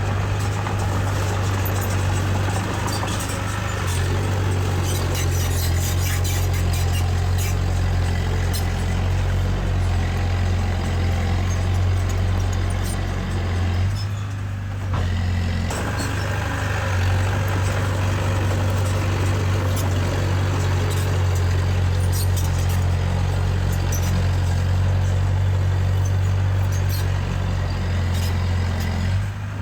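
Heavy diesel machinery engine running steadily under load, with scattered metallic clanks and rattles. The engine note steps up about four seconds in and dips briefly about halfway through.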